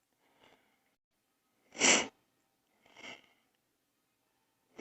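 A person's short, noisy breaths close to the microphone: a loud sniff or exhale about two seconds in and a fainter one about a second later.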